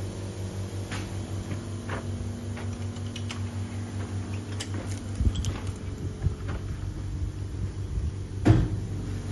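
Low, steady machine hum with a fast even pulse, broken by a few sharp metal clanks and clicks as a camlock hose fitting is handled and coupled; the loudest clank comes about eight and a half seconds in.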